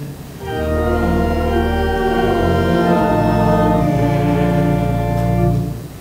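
Church organ playing a short series of held chords, changing every second or so, that ends abruptly just before the end: the Amen closing the collect.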